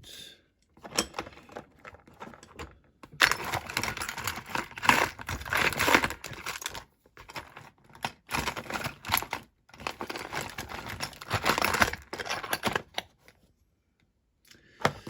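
Bench handling noises from working a small diecast model apart: scattered clicks and three longer bouts of rough scraping and rustling.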